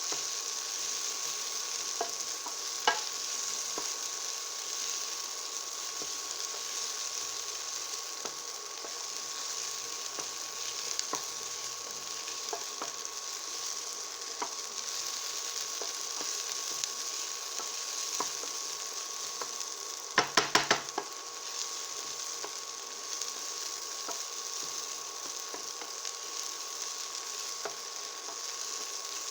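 Onions and red Thai chili peppers sizzling as they stir-fry in sesame oil, a steady hiss. Occasional clicks of stirring, and a quick run of sharp knocks about twenty seconds in, the loudest sound.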